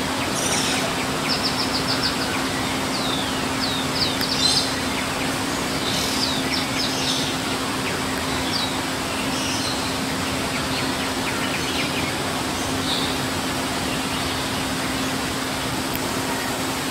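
Java sparrow courtship song: quick runs of high clicks and short descending chirps over the first several seconds, thinning out to a few notes later. A steady low hum and background noise run underneath.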